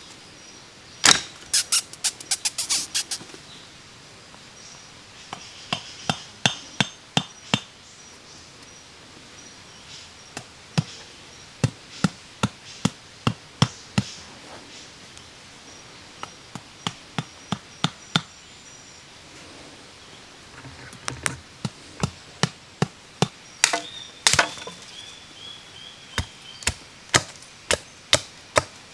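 Wood being chopped or struck with a tool: sharp knocks in irregular runs, at times about two a second, with short pauses between runs.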